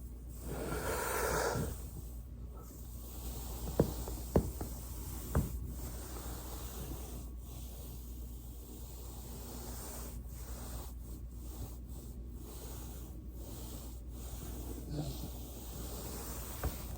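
A short rubbing hiss near the start, then three sharp joint cracks about four to five and a half seconds in, a little under a second apart, with a couple of fainter pops near the end, over a steady low hum.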